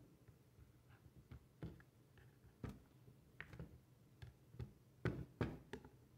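Scattered light clicks and taps of hands handling the back of a Fluke 279 FC multimeter's plastic case and rubber holster, fingers working at the screw on its back panel, with a cluster of louder knocks near the end.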